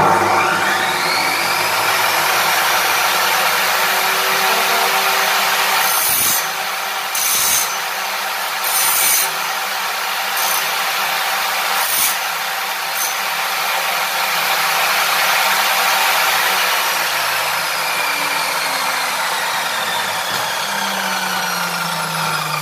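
Planet Power Hammer Series abrasive cut-off saw starting up with a rising whine, then running at a steady whine while the abrasive wheel grinds into a square steel tube in several short bursts, throwing sparks. Near the end the motor is switched off and the whine falls as the wheel coasts down.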